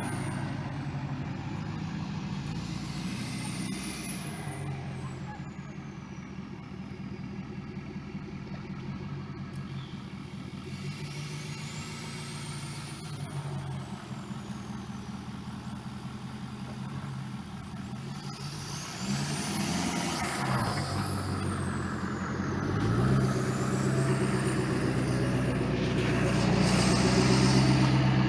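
A vehicle engine running, with a high whine that rises and falls several times. It gets louder about two-thirds of the way through and again near the end, as it is revved.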